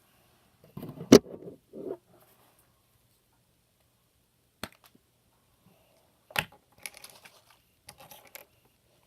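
Handling noises on a tabletop: a sharp knock about a second in, a light click, another knock, and brief rustling and scraping in between.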